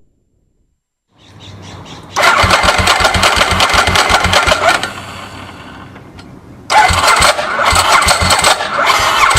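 Ducati sportbike's L-twin being cranked by its electric starter in two long attempts, each a loud stretch of even pulsing with a quieter lull between, without settling into an idle: the new bike is failing to start.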